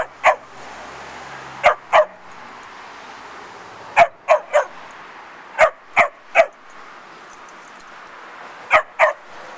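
Labrador retriever puppies barking in play: about a dozen short, sharp barks in quick pairs and threes, with pauses of a second or two between the bursts.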